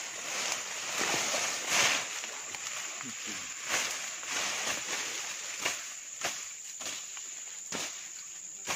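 Footsteps and the rustle and swish of ferns and tall grass as people push through dense swamp undergrowth, in irregular crackling strokes. A steady high insect buzz runs underneath.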